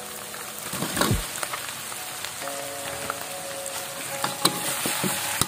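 Fried chicken pieces going into a wok of hot oily green chilli sambal, which sizzles steadily, with metal spatula knocks against the wok about a second in and again near the end.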